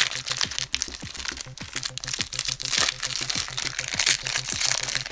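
Foil wrapper of a 1995 Fleer Ultra Spider-Man trading card pack crinkling and tearing as it is pulled open by hand, over background music with a steady beat.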